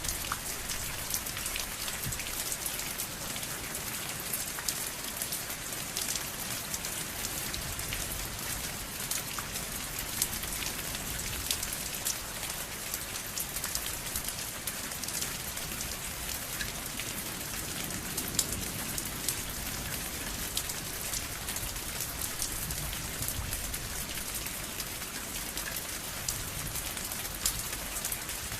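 Steady rain falling: a constant hiss with many sharp drops ticking through it.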